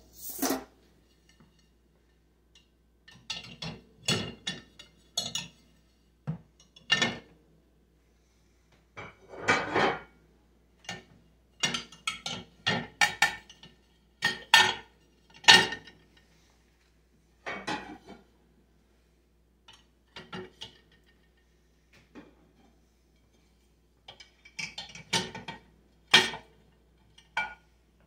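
Ceramic dinner plates being set into the wire rack of a compact countertop dishwasher: irregular clinks and clacks of plates against the rack and each other, in small clusters every second or two.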